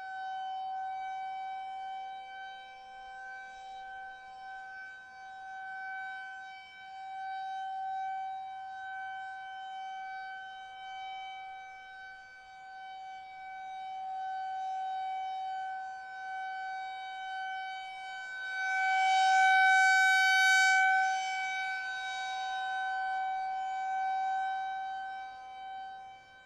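Federal Signal 2001-130 outdoor warning siren sounding the steady full-alert tone. The pitch holds level while the loudness swells and fades every six or seven seconds as the rotating head sweeps past, with the loudest pass about twenty seconds in.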